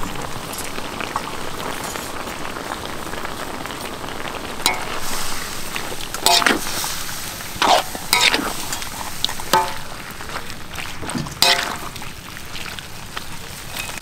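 Food sizzling as it cooks, a steady hiss, with several short sharp clatters that sound like utensils knocking in the middle of the stretch.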